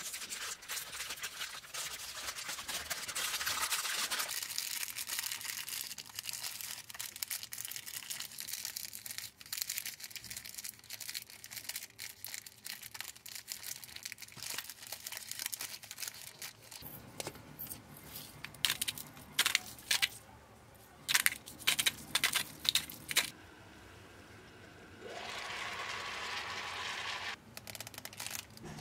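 Paper sandwich wrap crinkling and rustling as it is folded tightly around a sandwich by hand. A little past the middle comes a string of sharp, loud crackles, and near the end a steady papery rustle lasting a couple of seconds.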